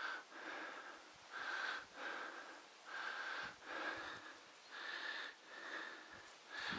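A man breathing hard close to the microphone, quick regular in-and-out breaths about every two-thirds of a second, winded from walking over rough muddy ground.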